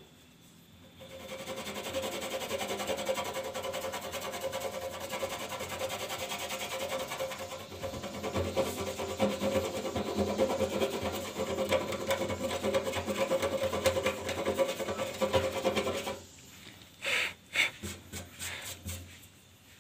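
Fingertip rubbing fine soil into the sanded steel of a leaking fuel tank, working it into the leak as a filler: a steady gritty scraping for about fifteen seconds, then a few short separate strokes near the end.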